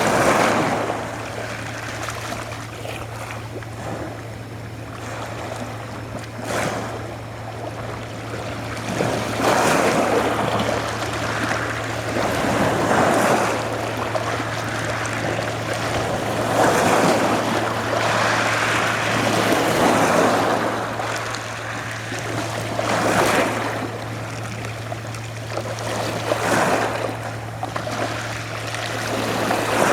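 Adriatic Sea waves washing and breaking on the shore, surging up every few seconds with splashes, over a steady low hum.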